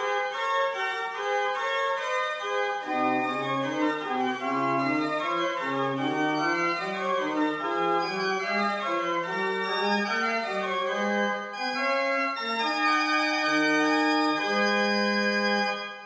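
The Great Organ at Adlington, a pipe organ, being played: several lines of notes move at once, a low bass line joins about three seconds in, and the passage settles onto a long held chord near the end.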